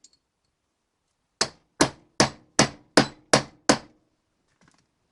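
Hammer striking seven times in quick, even succession, driving a Timken wheel-bearing race into a classic Mini rear hub, each blow ringing briefly.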